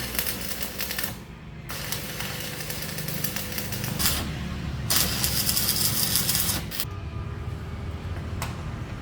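Electric welding arc crackling in bursts of one to three seconds with short breaks between, over a steady low hum.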